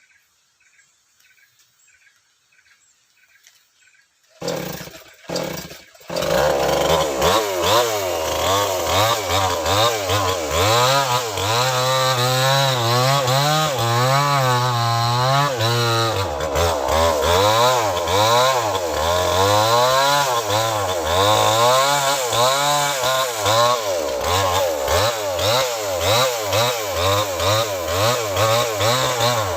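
A small two-stroke chainsaw: two short bursts of engine sound about four seconds in, then it catches and runs loudly from about six seconds. Its pitch keeps rising and falling as it revs up and down while cutting into a large tree.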